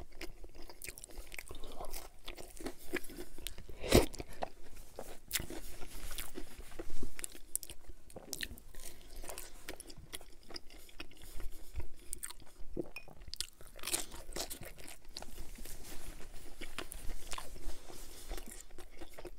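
Bites and chewing of a cauliflower-crust pizza slice: irregular crunches and wet mouth clicks, loudest about four seconds and seven seconds in.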